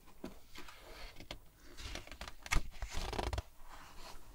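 A picture-book page being turned by hand: fingertips and nails tick and scrape on the paper, then a louder rustle of the page lifting and flipping over about two and a half seconds in.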